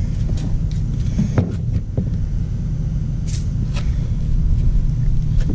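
A steady low rumble, with a few light clicks and knocks as a plastic Braun underhood work light is handled and set down.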